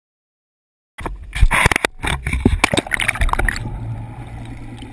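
Water splashing and sloshing loudly over a camera at the sea surface, starting about a second in; about three and a half seconds in the sound turns muffled as the camera goes under, leaving a low steady hum.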